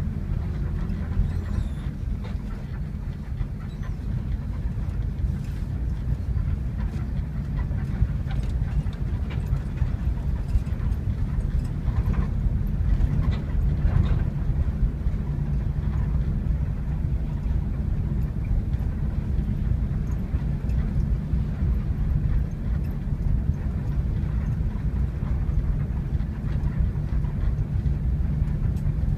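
Steady low drone and road rumble of a moving coach bus heard from inside the cabin, with occasional light rattles and clicks.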